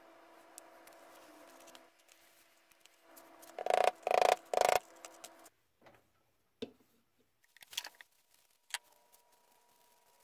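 Handling noises at a knife-finishing bench: three loud, short bursts about four seconds in, then a few light clicks, over a faint steady electrical hum.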